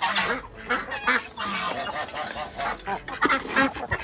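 Flock of geese honking with ducks calling among them: many short, overlapping calls repeated throughout, from poultry excited at feeding time.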